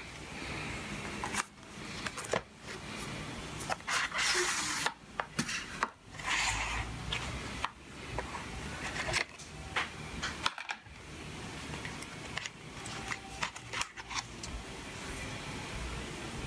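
Cardboard and plastic packaging handled on a wooden desk as the box is opened: scattered clicks and taps, with a couple of longer rustling scrapes about four and six seconds in as the box slides open and the tray comes out.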